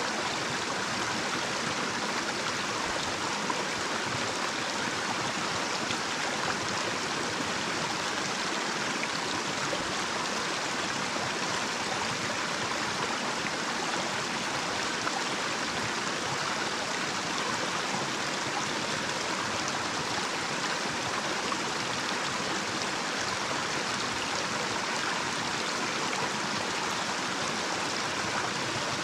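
Small, shallow natural stream running over a little cascade: a steady, even rush of flowing water.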